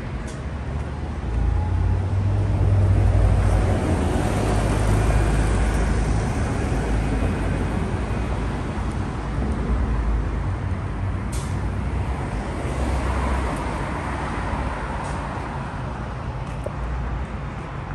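City street traffic noise: a passing vehicle's low rumble swells a couple of seconds in and slowly fades under steady road noise, with a few short clicks in the middle.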